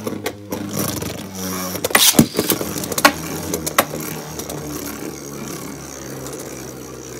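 Two Beyblade Burst spinning tops whirring steadily on a plastic stadium floor, the whir slowly fading as they lose spin. Sharp clacks ring out as they collide, the loudest about two seconds in, with more near three and four seconds.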